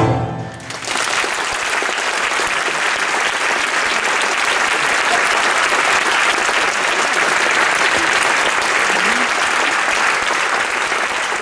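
Last notes of a live tango ensemble die away, and about a second in a theatre audience breaks into steady applause that carries on throughout.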